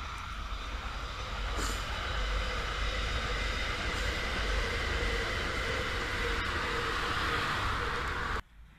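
Dutch NS electric passenger train passing along the line: a steady rush of wheels on rails that builds over the first couple of seconds and then holds, with a faint steady hum in it. The sound cuts off abruptly near the end.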